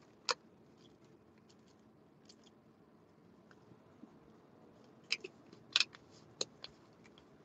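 Plastic gummy-vitamin bottle handled in the hands and its screw cap twisted, giving scattered sharp plastic clicks: one just after the start and a quick cluster of several about five to seven seconds in.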